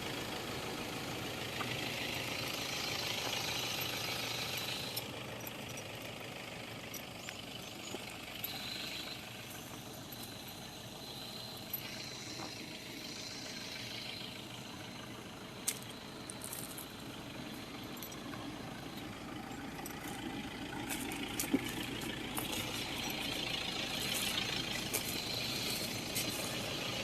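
Backhoe's diesel engine running steadily, with a few sharp clicks and knocks.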